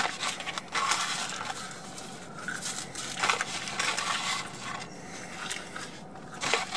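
Irregular crinkling, rustling and small clicks of fast-food wrappers and packaging being handled.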